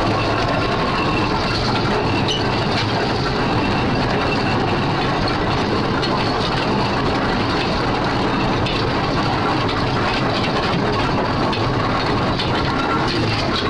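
Steam traction engine on the move, running with a steady mechanical clatter.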